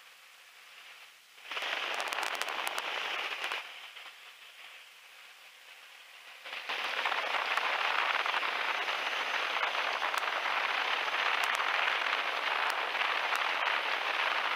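Rushing wind noise in the open cockpit of a biplane in flight, picked up by the microphone as an even hiss with faint crackles. It cuts in about a second and a half in for two seconds, drops back, then cuts in again at about six and a half seconds and holds steady.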